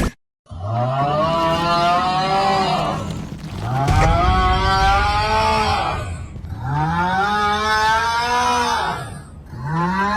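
A long, drawn-out moo-like call that rises in pitch and then holds, repeated four times about three seconds apart.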